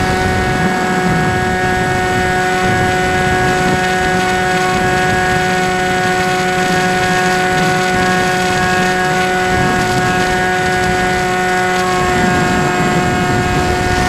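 Electric motor and propeller of an FPV model airplane whining at a steady pitch, heard from on board, with wind rumbling on the onboard camera's microphone.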